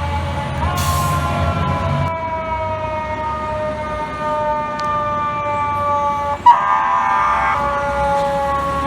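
Fire truck siren wailing, its pitch falling slowly over several seconds. A single air horn blast of about a second, the loudest sound, comes about six and a half seconds in. Heavy engine rumble sits underneath for the first couple of seconds.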